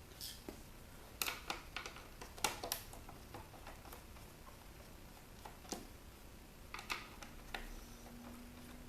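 A few scattered light clicks and taps of small parts being handled while an electronic movie player is taken apart, in clusters about a second in, near three seconds, and again near the end. A faint steady low hum comes in near the end.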